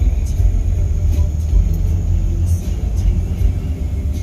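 Low, uneven rumble of a truck on the move with wind noise, heard from its open wooden cargo bed.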